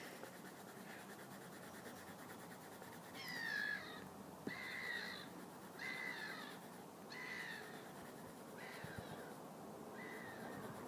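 A bird calling: a run of about six short calls roughly a second apart, starting about three seconds in, the last ones fainter.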